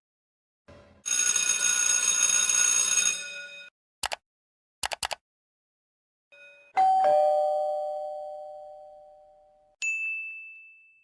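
A run of separate sound effects, the main one a two-note doorbell chime, ding-dong, high note then lower note, fading out over about three seconds. Before it come a noisy ringing sound of about two and a half seconds and a few short clicks; near the end a single high ding.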